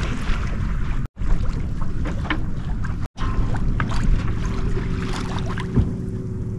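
Wind buffeting the microphone over water rushing and splashing along a sailboat's hull under way at sea. The sound drops out briefly twice, about a second in and about three seconds in, and a faint steady hum comes in about four and a half seconds in.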